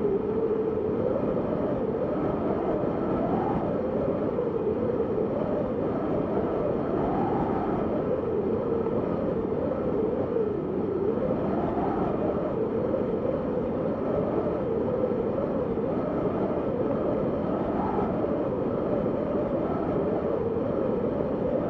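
Snowstorm wind howling steadily, a whistling tone that wavers up and down in pitch every few seconds over a constant rushing noise.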